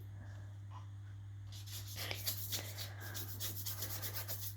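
Paintbrush scrubbing and dabbing on a painted surface: short scratchy strokes, about three or four a second, starting a second and a half in.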